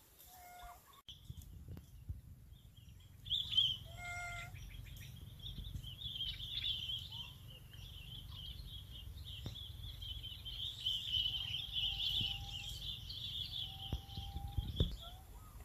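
Birds calling: a steady high chattering that sets in about three seconds in, with a few short whistled notes and two longer steady whistles near the end, over a low rumble.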